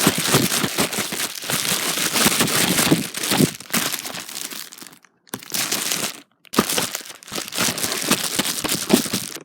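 Mail packaging being handled, crinkling and rustling with many small crackles, pausing briefly about halfway through.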